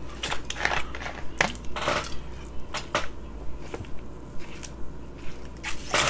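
Close-miked eating sounds: chewing and mouth noises, with many short sharp clicks and crackles scattered throughout.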